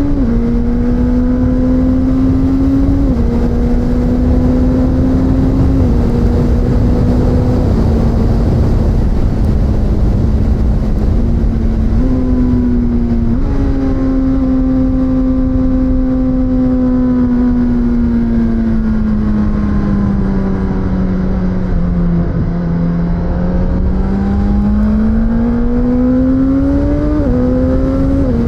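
Suzuki GSX-S1000's inline-four engine heard from the rider's seat while riding. The engine note drops in pitch with an upshift about every three seconds at first, jumps up twice with downshifts around the middle, sags slowly and then climbs again under acceleration before dropping at another upshift near the end. A loud rush of wind runs underneath.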